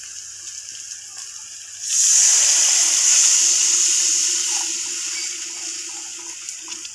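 Water poured from a steel glass into a hot kadai of frying masala: a sudden loud hiss and sizzle about two seconds in as the water hits the hot oil, easing off slowly as the gravy settles to a bubble.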